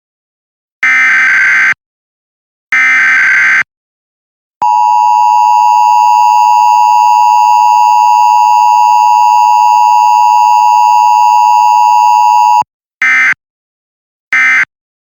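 Emergency Alert System test tones. First come two SAME header data bursts, each about a second long. Then the two-tone attention signal (853 and 960 Hz) holds steady for about eight seconds and cuts off abruptly, and two short end-of-message data bursts follow near the end.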